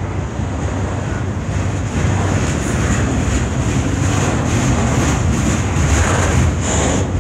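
Double-stack intermodal container train rolling past: a steady rumble of steel wheels on rail, with wheel clacks coming in and the sound getting a little louder about two seconds in.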